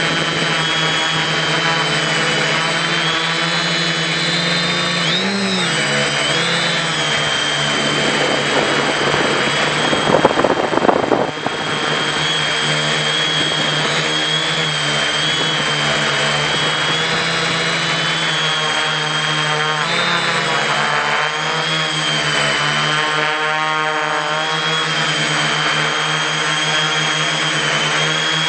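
Quadcopter's electric motors and balanced APC 11x4.7 propellers whirring steadily in flight, heard from on board, the pitch drifting slightly with throttle. About ten seconds in, a louder rush of noise lasts a second or so.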